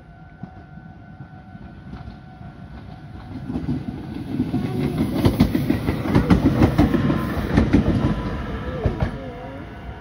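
Meitetsu electric commuter train passing close by, its wheels clattering over the rail joints. The rumble builds over a few seconds, is loudest through the middle and fades near the end. A level-crossing warning bell rings steadily at the start.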